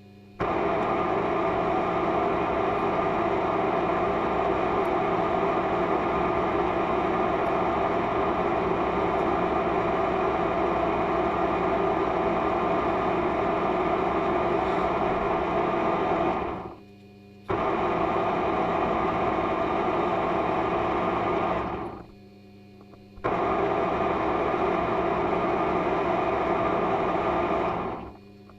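Handheld electric power tool motor running steadily in three long runs, the first about sixteen seconds and the next two about five seconds each, each winding down briefly when switched off.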